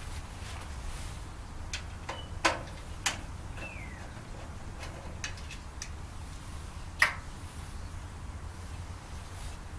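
Handling noises from taking apart a microwave: scattered sharp clicks and knocks of tools and parts, three of them louder, the loudest about seven seconds in, over a steady low hum.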